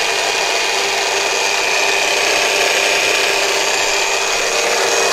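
Countertop blender running at a steady speed, blending a mixture until smooth, with a steady high whine over the motor noise.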